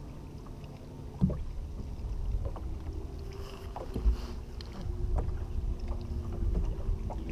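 Wind on the microphone and water against a bass boat's hull, with a faint steady hum. Scattered knocks on the boat deck, a sharp one about a second in, while an angler fights a fish at the bow.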